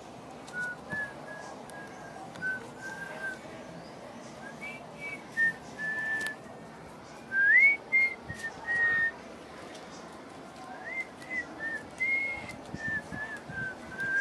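A person whistling a tune: a string of clear, single-pitched notes with a few quick upward slides between them.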